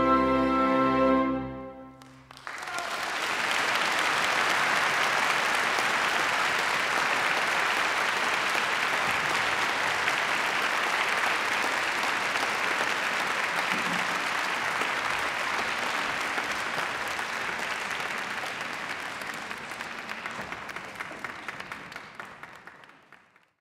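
An orchestra holds a final chord that stops about two seconds in. A concert audience then applauds steadily, thinning to scattered claps and dying away near the end.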